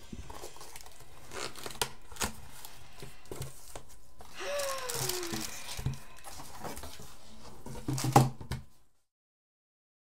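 Cardboard box and packing paper being handled: rustling, crinkling and tearing of paper and tape, with a short falling squeak about halfway. A sharp knock of cardboard comes a little after eight seconds, then the sound cuts off to silence.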